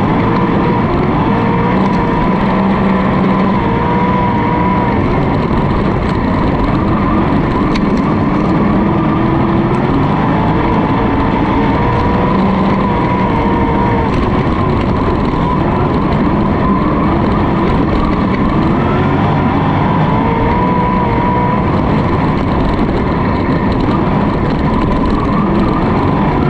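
On-board sound of a sprint car's V8 engine at racing speed on a dirt oval, loud and continuous, its pitch rising and dipping as the throttle comes on and off through the turns. The engines of the sprint cars running alongside are mixed in.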